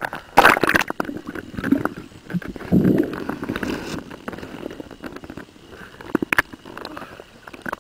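Sea water splashing and gurgling around a camera moving between the surface and just underwater, in irregular bursts with small knocks; the loudest splashes come about half a second in and near three seconds.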